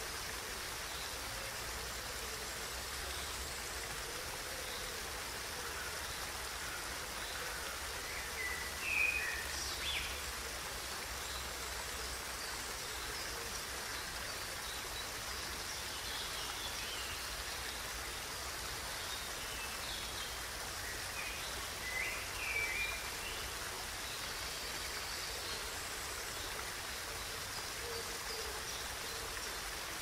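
Small waterfall in a rocky stream splashing steadily. Birds chirp briefly about nine seconds in and again a little past two-thirds of the way through.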